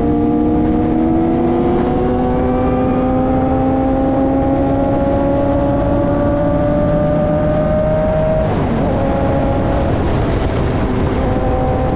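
Sport motorcycle engine pulling steadily at highway speed, its note rising slowly for about eight seconds. It then dips and settles into a steadier tone, like a gear change. Heavy wind rush runs underneath.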